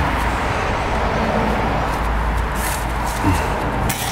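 Steady workshop background noise, a low hum under a hiss, with a few light clicks about two and a half seconds in and near the end.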